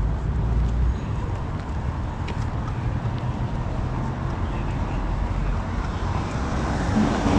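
Street traffic noise with a steady low rumble, swelling near the end as a vehicle passes close by.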